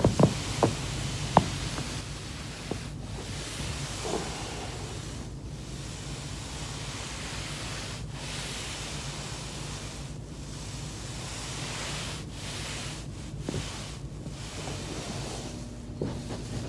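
Back joints cracking while foam rolling: four sharp pops in the first second and a half. They are followed by a steady rushing hiss that swells and dips every couple of seconds, with a few faint pops later on.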